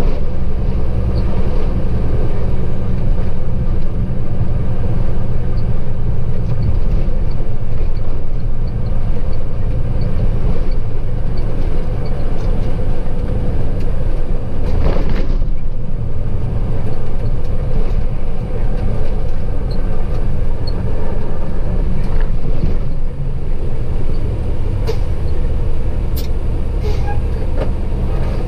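Semi-truck's diesel engine running steadily while driving, with a low engine drone and road noise heard from inside the cab.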